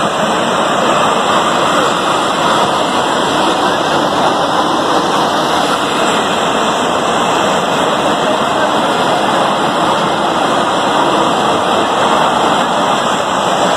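Steam escaping from a sugar mill's ruptured steam line: a loud, even hiss that holds steady without a break.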